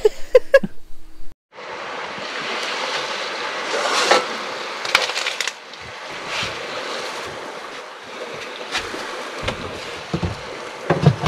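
Steady rushing of strong wind and surf, with a few light clicks over it. It starts suddenly about a second and a half in, right after a burst of laughing voices.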